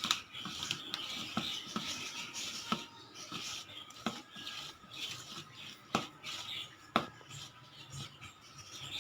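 A spoon stirring a dry mix of gram flour, rice flour and spice powders in a bowl: soft scraping with irregular light clicks of the spoon against the bowl, the sharpest two about six and seven seconds in.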